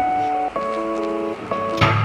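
Background instrumental music: a melody of held notes stepping from pitch to pitch, with a sharp hit and a deep held bass note coming in near the end.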